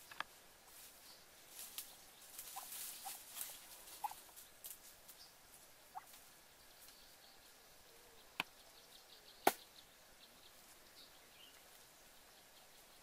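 Footsteps on dry leaf litter and twigs, a faint rustling and crackling with two sharp snaps in the second half.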